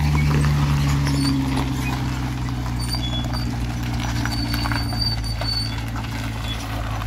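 Ute engine running at a low, steady pace as it tows a loaded car trailer over gravel, its note easing down about a second and a half in, with light crunching and rattling from the tyres and trailer.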